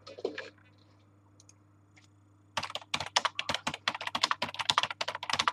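Fast typing on a computer keyboard: a quick, uneven run of key clicks that starts about two and a half seconds in.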